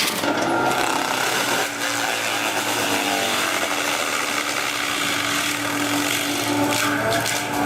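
A machine's engine running steadily, with a faint rising whine now and then.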